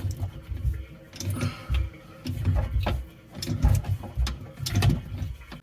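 Irregular metal clicks and knocks with low handling thumps, about one cluster a second, as a wrench tightens the faucet's supply-line fittings under a bathroom sink.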